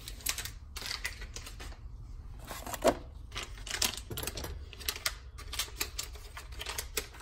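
Foil blind-bag packet crinkling as it is pulled from its cardboard display box and handled. It makes an irregular run of sharp crackles and clicks, with one louder crackle about three seconds in.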